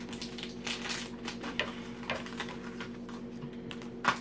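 Toy packaging being unwrapped and handled by hand: scattered light clicks and paper rustles over a steady low background hum.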